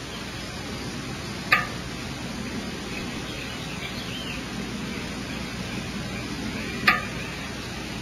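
Steady hiss from a nest-cavity camera microphone, broken by two short, sharp chip-like sounds, one about one and a half seconds in and one near the end, with faint bird chirps between them.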